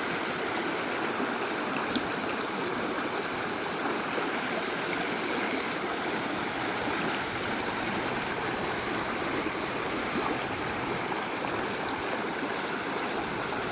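Rain-swollen creek in flood, fast water rushing steadily.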